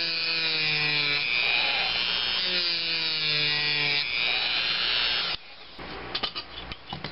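Handheld rotary tool with a sanding drum sanding a strip of glued wooden popsicle sticks held in a vise: a steady motor whine with gritty sanding hiss, its pitch sagging a few times as the drum is pressed into the wood. The tool cuts off suddenly about five seconds in, followed by a few light clicks.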